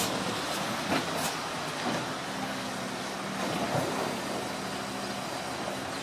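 Garbage truck engine running steadily, with a few sharp clanks in the first second and a half.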